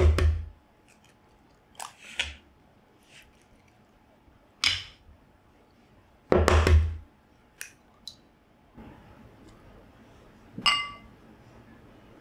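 Raw eggs cracked into a ceramic bowl one at a time: two loud, deep knocks about six seconds apart, with lighter taps and shell clicks between them. Near the end comes one ringing clink of a glass bowl against the dish.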